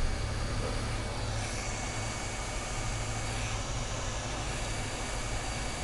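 Hot-air rework station blowing steadily: a continuous rush of air over a low hum, its nozzle heating a shield can on a circuit board.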